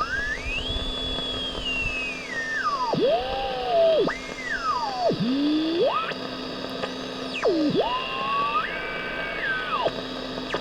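AM radio heterodyne whistle: a pure whistling beat note that sweeps smoothly up and down in pitch several times as the tuning moves across the Panasonic R-111's local oscillator, a sign that the oscillator is running. A steady low hum sits under it.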